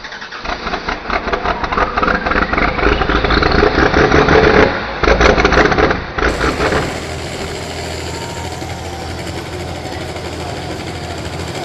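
Farm pulling tractor's engine working hard under full load, its pitch rising over the first four seconds or so, with a short break just before five seconds. It drops off about six seconds in to a lower, steadier running sound.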